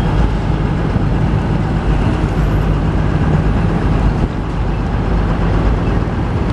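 Diesel-electric hybrid city bus running at close range as it creeps past: a steady low engine hum over the rush of street traffic.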